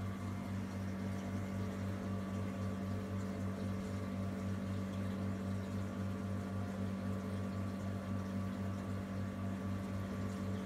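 Reef aquarium pumps and equipment humming steadily: a deep electrical hum with a quick, regular pulsing, over a faint wash of moving water.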